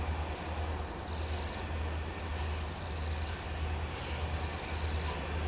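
Approaching diesel-electric freight locomotives (G class G531 leading an XR and a T class) working a container train: a steady low rumble that pulses, with a haze of running noise above it.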